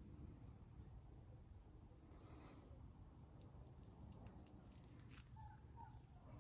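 Near silence: faint room tone with a low rumble and a steady high-pitched hiss that fades near the end, plus a few faint ticks.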